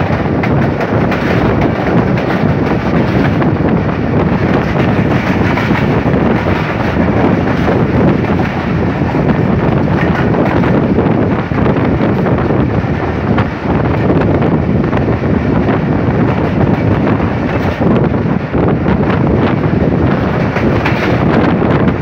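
Awam Express passenger train running along the track, heard from an open coach doorway: a steady loud rumble of wheels on rail mixed with heavy wind buffeting the microphone.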